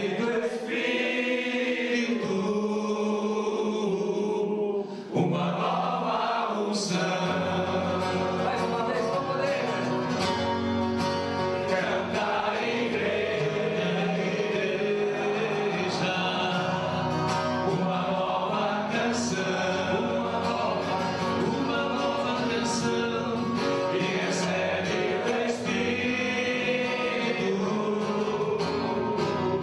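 A group of men singing a Catholic worship song together, led by a priest singing into a microphone. A low instrumental accompaniment joins underneath about seven seconds in.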